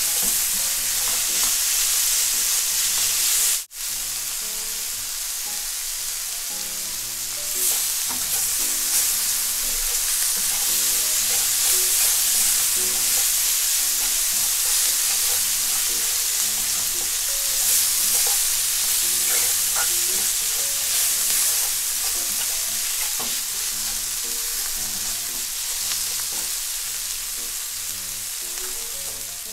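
Kimchi sizzling in oil in a frying pan while it is stirred with wooden chopsticks, with light scraping of the sticks against the pan. The sound cuts out for an instant about three and a half seconds in, and quiet background music plays underneath.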